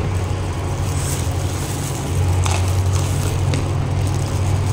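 Steady low hum, with two faint clicks a little after the middle.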